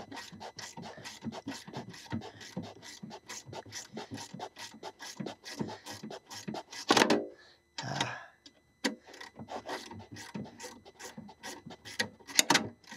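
Ratcheting box-end wrench clicking rapidly and evenly as it turns out the lower bolt of a window regulator. About seven seconds in, the rapid clicking gives way to a louder scrape, then scattered single clicks with a short louder burst near the end.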